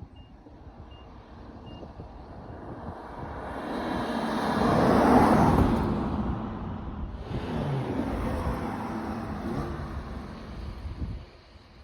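BMW 540i's B58 3.0-litre turbocharged straight-six pulling hard: the engine sound builds to a peak about five seconds in, drops sharply for a moment around seven seconds, as at a gear change, then pulls again and fades away near the end.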